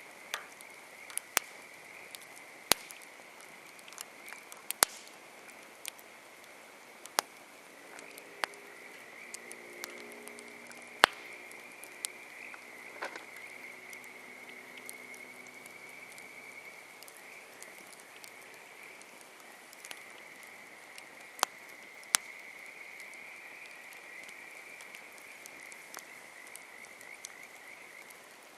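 Campfire crackling with sharp, irregular pops of burning wood, over a steady high-pitched trilling chorus. A faint low hum comes in about a third of the way through and fades out past the middle.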